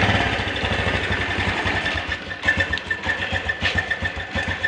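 Honda Blade's 110 cc single-cylinder four-stroke engine idling roughly, with a fast metallic ticking coming in about two seconds in. The engine sounds dry, which the mechanic puts down to it running with almost no oil.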